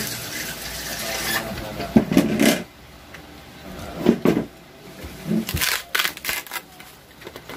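Plastic spoons and forks clicking and scraping on takeaway food containers as people eat, with a few short bursts of voices.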